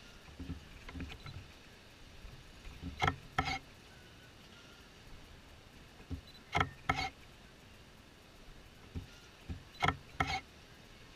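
Spinning balloon ride's swinging tub cars and pivots creaking: a pair of short squeaky knocks comes three times at an even pace, about every three and a half seconds, over the steady hum of the ride, with a few softer knocks at the start.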